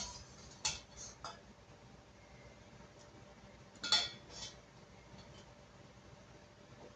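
Kitchenware clinking lightly off to the side: three small taps in the first second and a half, then a louder pair about four seconds in.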